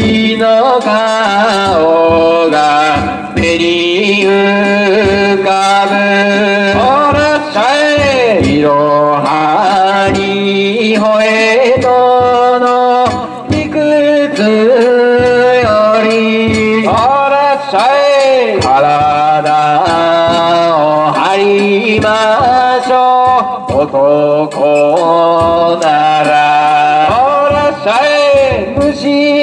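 A danjiri hikiuta (cart-pulling song) sung in a long, wavering style, the voice sliding and curling through ornamented notes between held tones.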